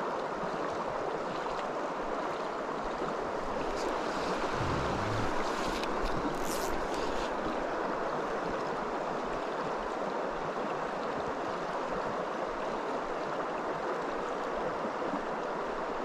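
Fast-flowing river water rushing steadily through shallow runs.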